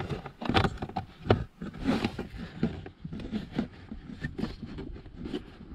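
Hands handling a 2019 Ram 1500's plastic cabin air filter cover, just snapped into place: scattered light plastic clicks and taps with some rubbing.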